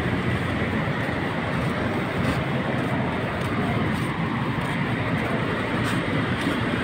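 Steady road traffic noise from cars passing on an adjacent boulevard, an even rumble with no single vehicle standing out.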